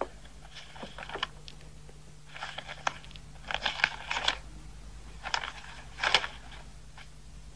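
Paper rustling as documents are handled and unfolded, in several short crinkly bursts, over a faint steady soundtrack hum.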